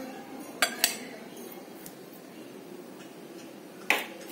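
Steel spoon clinking against a glass bowl while spooning mayonnaise: two quick clinks a little over half a second in, and one more near the end.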